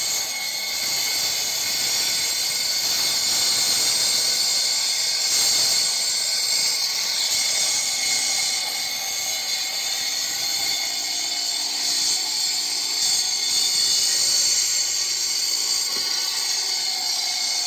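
A 14-inch blade concrete cutting machine cutting through a concrete slab: a steady, high-pitched grinding hiss that holds at an even level.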